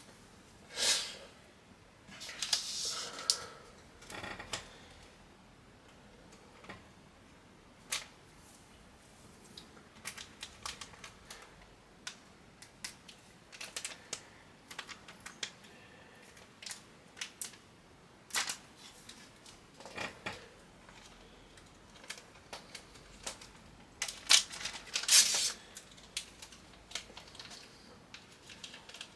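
Computer parts being handled and fitted: irregular small clicks and taps of plastic and metal, with louder bursts of rustling and clattering near the start and again near the end.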